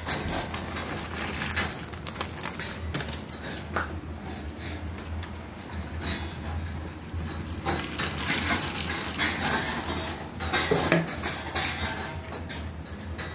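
Small round biscuits dropped by hand onto dry kibble in a stainless steel bowl: scattered light clicks and clatters with bits of rustling, over a steady low hum.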